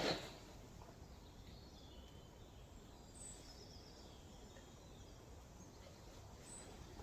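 Near silence: faint background noise with a few faint, high bird chirps.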